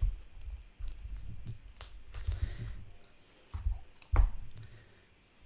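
Irregular clicks and soft bumps of hands handling a runny, glossy slime and its containers, loudest about four seconds in.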